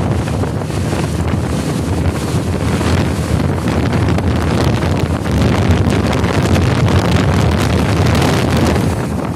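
Wind buffeting the microphone of a rider on a moving motorbike: a loud, steady, low rumbling rush.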